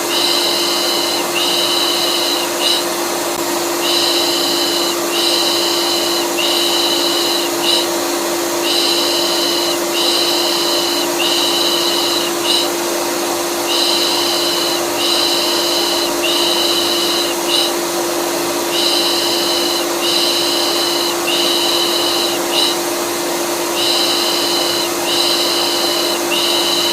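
Vacuum cleaner motor running steadily, for use as white noise to calm a colicky baby. Over it, a soothing 'pış pış' shushing repeats in groups of three long strokes and one short one, about every five seconds.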